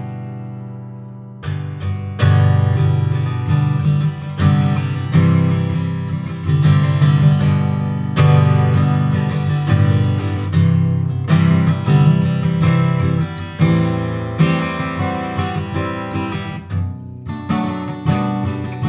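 1964 Gibson Hummingbird flat-top acoustic guitar played solo, with picked notes and strummed chords. A chord rings and fades for about a second and a half, then the playing starts again with a sharp attack and runs on continuously.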